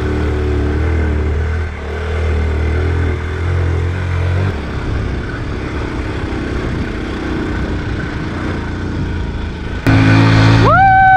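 Honda C90's small single-cylinder four-stroke engine running under load on a loose gravel track, struggling for power. About four and a half seconds in, its steady note gives way to a rougher sound. Near the end it comes back louder after an abrupt change.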